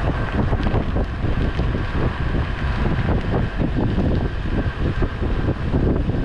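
Wind buffeting the microphone on a slowly moving ute driving on hard sand, with the vehicle's engine and tyres rumbling underneath and a thin steady whine.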